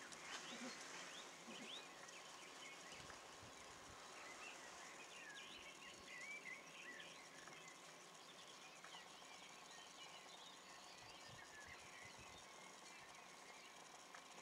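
Near silence with faint small birds chirping and singing, many short calls scattered throughout over a quiet background hiss.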